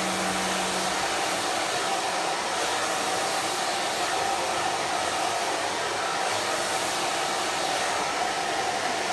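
Handheld hair dryer running steadily, a rushing whir with a steady whine, blowing across a round brush as long hair is blow-dried.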